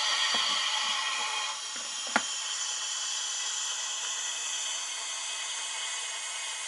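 Steam locomotive sound from the DCC sound decoder of a Lenz O gauge DB BR64 tank engine model: a few soft exhaust chuffs in the first couple of seconds, a sharp click about two seconds in, then a steady hiss of steam.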